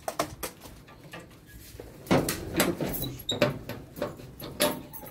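Irregular knocks and clicks with rustling between them, sparse at first and then a dense, louder clatter from about two seconds in.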